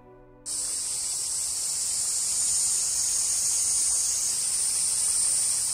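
Steady, high-pitched chorus of summer cicadas, starting abruptly about half a second in after the last faint trace of fading music.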